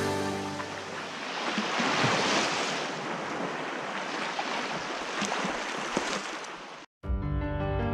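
Sea waves: a steady rushing wash that swells a little about two seconds in and cuts off suddenly near the end.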